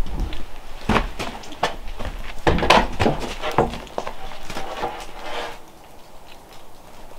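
A series of light knocks and thuds at uneven intervals, the loudest cluster a little before the middle, fading quieter near the end.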